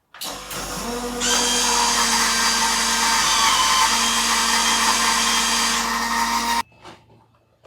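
Cino XS Presso Bean E2 coffee vending machine running a hot chocolate cycle: electric motors whirring with steady tones, a louder, higher whine joining about a second in. Everything stops abruptly after about six and a half seconds.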